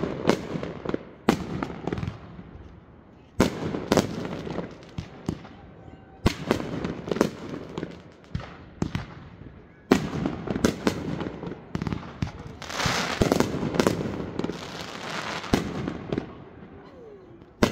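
Aerial fireworks bursting overhead: a series of sharp bangs a second to three seconds apart, each trailing into rumble and crackle. A little past halfway through comes a stretch of dense crackling.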